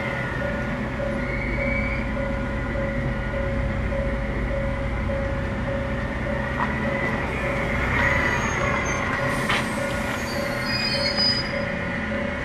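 Hakone Tozan Railway Moha 1-type electric railcar rolling slowly through the station, its wheels squealing high-pitched on the tight curve in the second half, strongest near the end. Over a low running rumble, an evenly pulsing beep repeats throughout.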